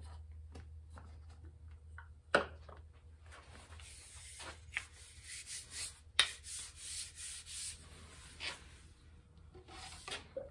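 Wooden axe handle rubbing and scraping in short, uneven strokes as it is worked out of and back into a PVC tube, with one sharp knock about two seconds in. A steady low hum sits under it.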